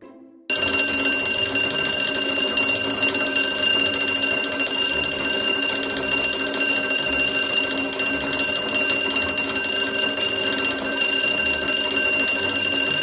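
Alarm clock ringing. It starts suddenly about half a second in and rings loudly and steadily without a break.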